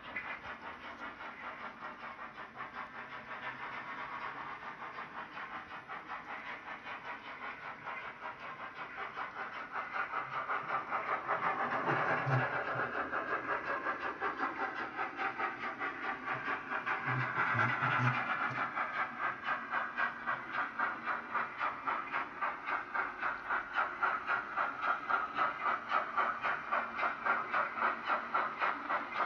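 H0-scale model steam locomotive's sound system chuffing rhythmically, about two or three chuffs a second, growing louder as the train approaches. Two brief low tones sound about twelve and seventeen seconds in.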